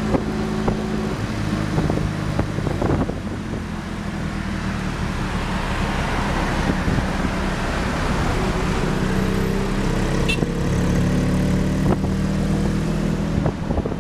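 Tuk-tuk's small engine running under way, heard from the open passenger cab, with a steady hum that fades under wind rush and road noise in the middle and comes back near the end. Passing city traffic runs underneath.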